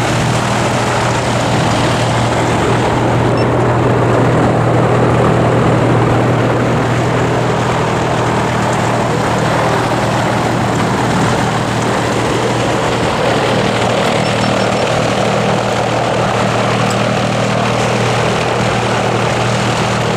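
A light aircraft's propeller engine running steadily on the ground: a constant low hum with the rush of the propeller's airflow over it.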